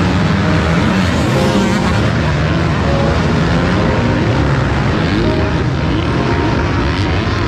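A pack of motocross bikes accelerating up a hill, many engines revving together, their pitches rising and falling over one another.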